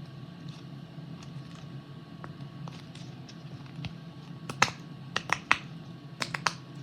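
Bubbles of a silicone ABC pop-it fidget toy being pressed and popping: about seven sharp pops in two quick clusters in the second half, over a steady low hum.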